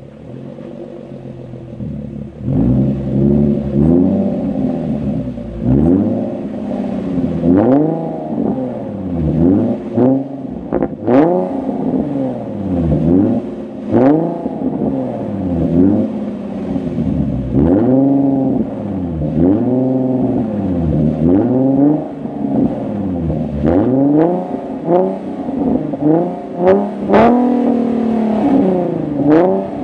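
2008 Infiniti G37 coupe's 3.7-litre V6 through a Motordyne E370 cat-back exhaust, free-revving in park. It idles for about two seconds, then the throttle is blipped again and again, the pitch climbing and falling about once a second, with a few sharp cracks between revs.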